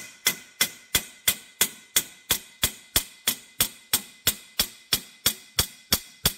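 Small hammer tapping a metal oil-gallery plug into the bore of a Porsche 911SC aluminium cam housing, driving in an interference-fit plug. Steady, even taps about three a second, each with a short metallic ring.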